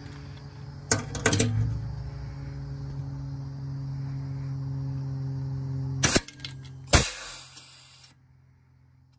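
Sharp metallic clicks of a socket on an extension seating on and working a bolt in a metal catalytic-converter shield plate. There is a quick cluster about a second in, and two more single clicks around six and seven seconds. A steady low hum runs underneath and cuts off suddenly about eight seconds in.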